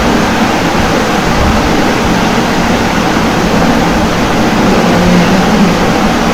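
Steady, even background noise with a faint low hum underneath, and no distinct events.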